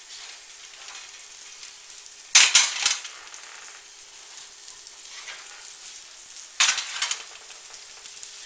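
Round baking pans clattering twice as they are pulled off the oven rack and set down on the electric stovetop, about two seconds in and again near seven seconds, over a steady faint hiss.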